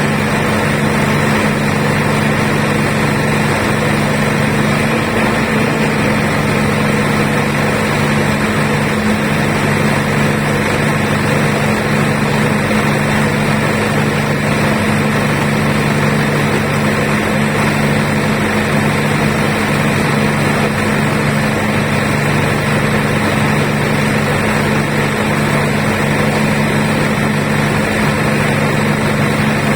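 Diesel generator running at a steady speed, a loud, even drone with a strong low hum that does not change.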